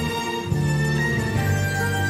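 Instrumental introduction of an enka song, the band music starting suddenly at the beginning.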